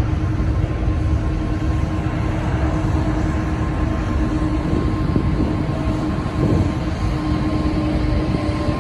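Two GE90-115B turbofans of a Japan Airlines Boeing 777-300ER at takeoff thrust on the takeoff roll: a steady, heavy jet roar with a deep rumble and a steady tone running through it.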